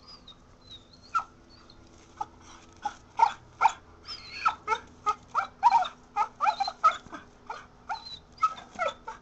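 Kelpie-mix dog whining and yipping in short, pitch-bending cries, sparse at first and then coming several a second from about three seconds in.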